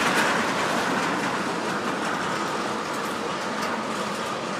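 Norfolk Southern freight train's tank cars rolling past on the rails: a steady rush and rumble of steel wheels on track, easing off slightly, with a faint thin tone in the second half.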